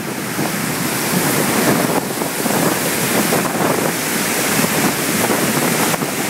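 Floodwater of the Río Guadalentín rushing at the dam after heavy rain: a loud, steady rush of water, with wind buffeting the microphone.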